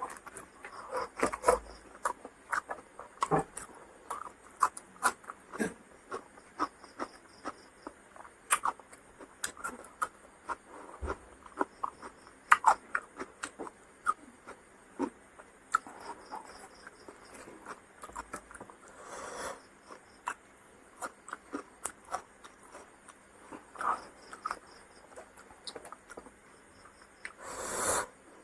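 A person chewing and eating close to the microphone: many irregular short wet clicks and smacks, with a longer breathy rush about two-thirds of the way through and another near the end.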